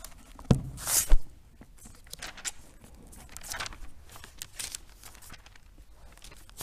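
Pages of a Bible being turned, rustling paper in short scattered bursts, with a couple of soft thumps about a second in.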